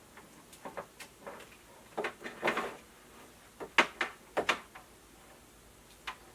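Handling noise as a power cord and plug are handled and plugged in: irregular clicks and knocks with a few short scraping rustles, the strongest about two and a half seconds in and again near four seconds.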